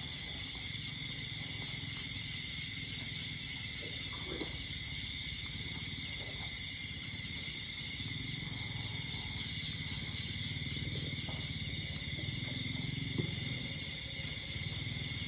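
Steady high-pitched chorus of night insects, with a steady low rumble underneath and a few faint knocks.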